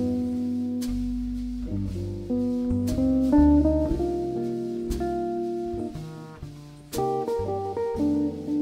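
Live jazz quartet of two electric jazz guitars, upright bass and drums playing a slow ballad. The guitar chords and melody notes ring out over walking upright bass notes, with occasional drum and cymbal strokes.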